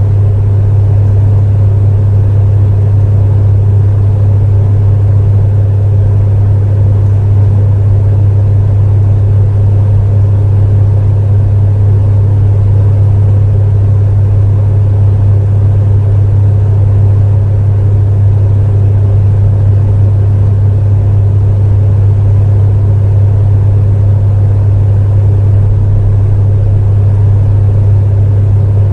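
Space heater running steadily: a strong low hum with an even rush of fan noise over it, unchanging throughout.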